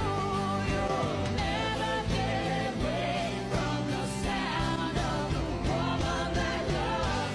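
A song with a sung melody over a steady beat.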